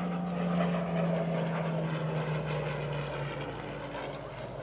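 Supermarine Spitfire's V-12 piston engine running as it flies past, its pitch falling slowly and then dropping lower about three and a half seconds in. Onlookers think it may be the Griffon-engined one.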